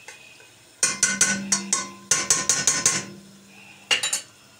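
Metal spoon clinking and scraping against a stainless steel pot while stirring onions and pepper paste frying in oil. The sound comes in two quick runs of sharp strikes, then a couple more near the end.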